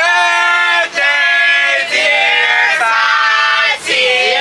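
Voices singing, in long held notes about a second each.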